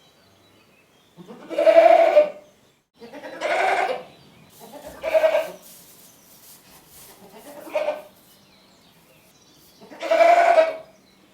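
Goat bleating, five separate calls a second or two apart, the fourth one shorter.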